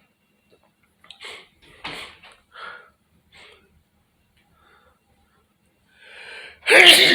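A person's breath: a few short noisy breaths, then a drawn-in breath and a loud sneeze near the end.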